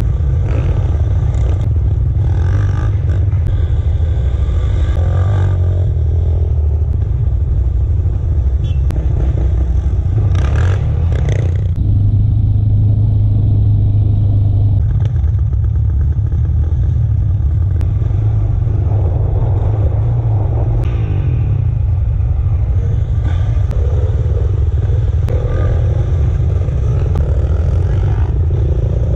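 Dirt bike and ATV engines running on a trail, a steady low engine drone with revs rising and falling as riders pull away and pass.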